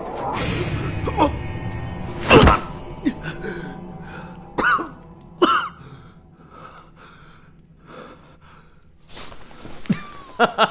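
A man coughing several times, the loudest cough about two seconds in and two more near the middle, over background music with sustained tones.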